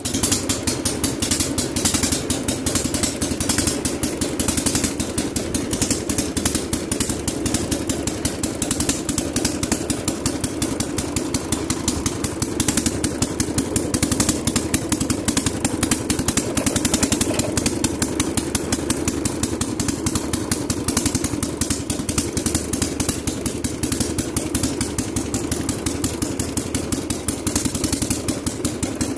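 Engine of a Sears Super Tandem SS12 garden tractor running steadily while the tractor drives along, with a fast, even firing beat.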